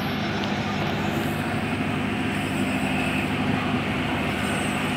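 Steady drone of a running engine, a low hum with several steady tones, unchanging throughout.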